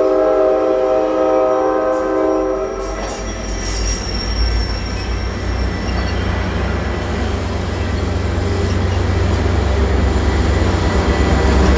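Commuter train horn sounding a chord of several notes, cutting off about three seconds in. It is followed by the deep engine rumble of the passing train's F40PHM-2C diesel locomotive, which grows louder as the locomotive at the rear of the train comes by.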